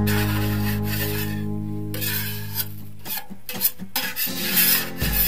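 A flat scraper blade dragged in repeated strokes across a motorcycle fuel tank, lifting blistered, softened paint, over background music. The scraping strokes stand out most in the second half, as the music thins out.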